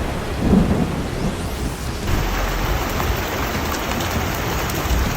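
Thunder rumbling during a rainstorm, loudest about half a second in, then a steady hiss of heavy rain that starts abruptly about two seconds in.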